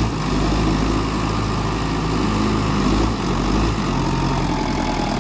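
Sonalika DI 55 DLX tractor's diesel engine running under load with a disc harrow hitched, its pitch shifting a little as it works.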